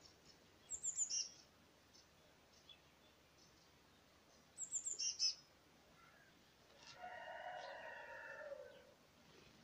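Faint small-bird chirping outdoors: two quick bursts of high, falling chirps. Near the end comes a held, pitched call of about two seconds from an unclear source.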